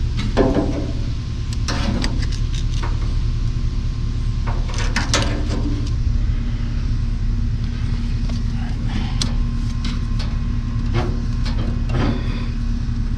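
Scattered metal clicks and knocks of hands working the throttle rod and linkage on a Ford 8N tractor's carburetor, over a steady low rumble.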